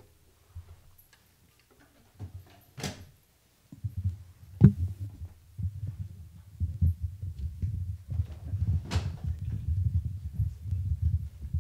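Microphone handling noise as a microphone stand is adjusted: a couple of sharp clicks, then from about four seconds in a dense run of irregular low thumps and bumps with one hard knock.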